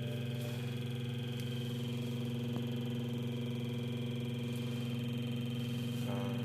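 Steady electronic hum with a thin high whine from a replaced BMW car radio that makes this noise on AM and FM instead of playing stations. The engine idles under it.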